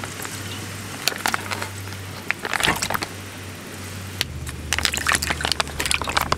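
Oden broth pouring from a plastic pouch into an aluminium pot. Then the pouch crinkles as the oden pieces (daikon, boiled eggs, chikuwa) slide out and splash into the broth, with many sharp crackles, busier after about four seconds.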